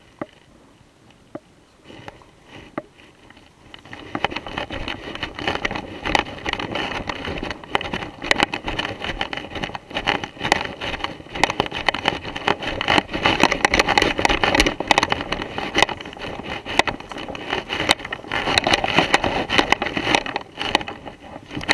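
Footsteps rustling and crunching through dry fallen leaves, sparse and faint for the first few seconds, then dense and loud from about four seconds in.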